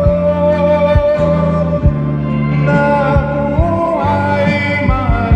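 A man singing a Tagalog love ballad over a karaoke backing track with a steady bass beat. He holds one long note at the start, then starts the next phrase past the middle.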